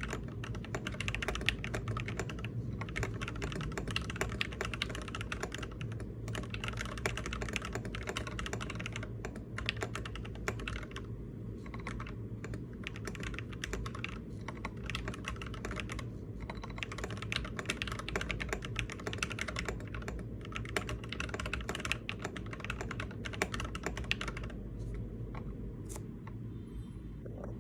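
Continuous typing on a Lofree Touch keyboard: a quick, irregular stream of keystroke clicks that thins out near the end, over a steady low hum.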